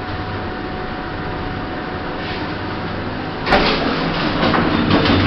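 1980s Thyssen lift car travelling between floors, a steady hum with a faint whine. About three and a half seconds in, the sound turns suddenly louder and busier, with clicks and clatter, as the sliding doors open.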